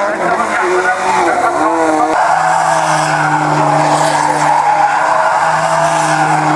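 Subaru rally cars' turbocharged flat-four engines held at high revs during doughnuts, with tyres skidding. For about the first two seconds the revs rise and fall. There is then a sudden change to a second car holding a steady engine note as it spins.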